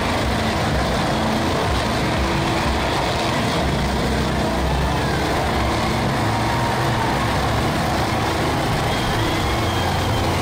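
Helicopter flying low overhead, its rotor and engine running with a loud, steady noise.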